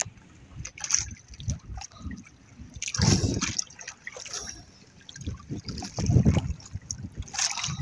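Water trickling and sloshing around a small boat while a wet nylon gill net is handled. The water noise comes in irregular bursts, loudest about three seconds in and again around six seconds.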